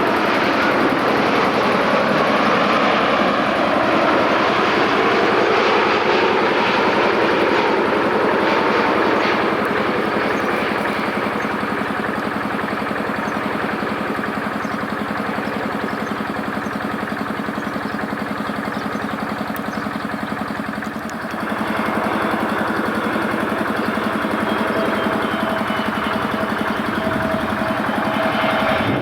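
Jet airliner engine noise, loud for the first several seconds and then easing to a quieter steady hum of engines. The sound changes again about three-quarters of the way through.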